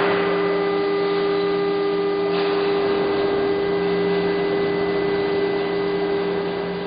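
Steady hum and hiss of an automated car-door production machine: several constant tones over an even rush of noise.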